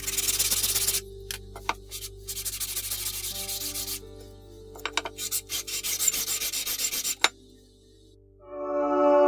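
Hand abrasive work on a metal tool part, rubbed back and forth on an abrasive in three spells of quick strokes. Soft background music plays underneath, and a chiming music chord comes in near the end.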